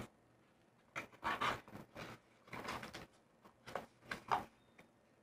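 A small cardboard box and paper cards handled by hand, with several short rustles and scrapes as the box is slid open.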